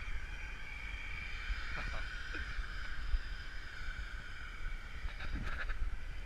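Duramax diesel pickup idling with a steady high-pitched whine over a low rumble. A couple of brief, faint sounds come about two seconds in and again near the end.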